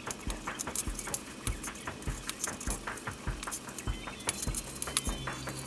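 Small clicks and taps of metal ball joints being handled and pressed by hand into the rod ends of carbon-fibre diagonal rods on a wooden table, many in quick irregular succession.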